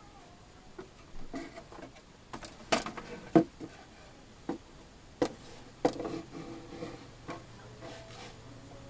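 Scattered knocks and clicks of hard parts being handled and set down, the loudest a sharp knock about three and a half seconds in. A faint low hum comes in about six seconds in.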